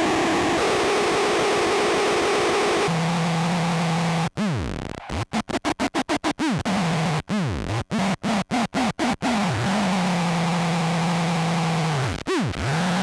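Harsh fuzz noise from a feedback looper run through a Sketchy Sounds Gorantula sub-octave synth fuzz. A dense hiss gives way about three seconds in to a steady low buzzing drone. The drone is then chopped by a momentary switch into fast stutters, about five a second, with pitch dives at the cut-outs, and settles back into the drone near the end with one more downward swoop.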